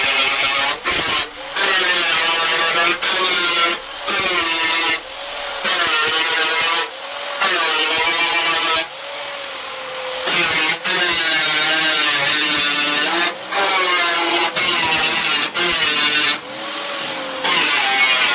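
Electric power tool motor whining on sheet metal, its pitch dipping and recovering as it is loaded, heard in a series of short clips with abrupt cuts between them.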